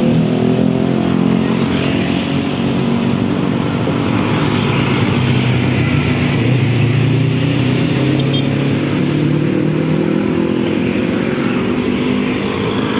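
Motorcycle engine running on the move, steady at first, then rising slowly in pitch through the second half as it speeds up, with road traffic around it.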